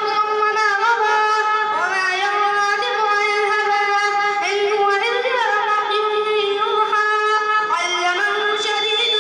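A young girl's voice chanting Qur'anic recitation in Arabic, in long held notes joined by melodic turns and slides in pitch.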